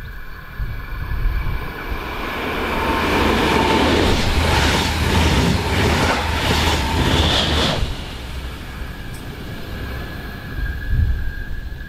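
Red double-deck regional passenger train passing close by: the rush of wheels on rail builds up, with a rapid rhythmic clatter as the wheelsets run past, then drops off sharply as the last coach goes by, leaving a fainter rumble.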